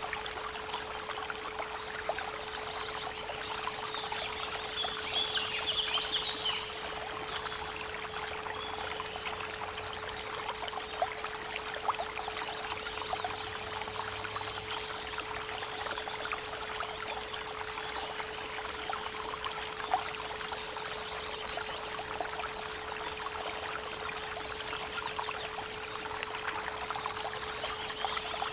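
A creek babbling and splashing steadily, under a steady 432 Hz pure tone. Small birds chirp and trill a few times above the water.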